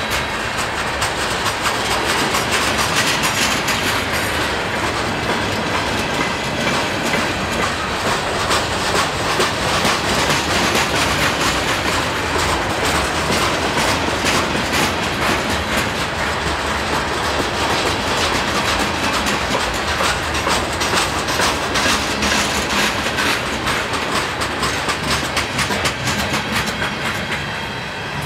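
Union Pacific train cars rolling slowly past at about 5 mph, the wheels clicking and clanking steadily over the rails.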